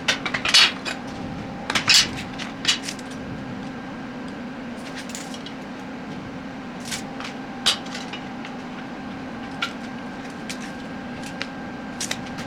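Metal parts of a welding cart clanking and clinking as they are handled and fitted together: a cluster of sharp knocks in the first few seconds, then a few single clinks, over a steady low hum.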